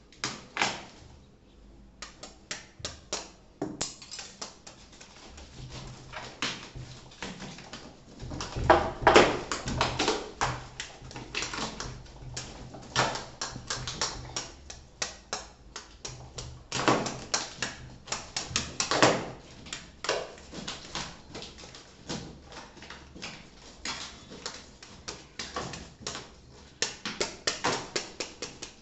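Packaging being handled: a long run of crinkles, rustles and light knocks, with louder bursts about nine, thirteen, seventeen and nineteen seconds in.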